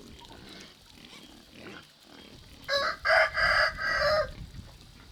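A rooster crowing once, a loud call in several linked parts lasting about a second and a half, starting a little under three seconds in.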